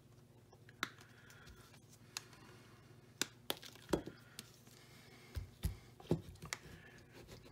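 Scattered light clicks and taps of hand tools and a leaded-glass piece being handled on a workbench, with side cutters set down and the glass piece picked up. The taps come more often toward the end.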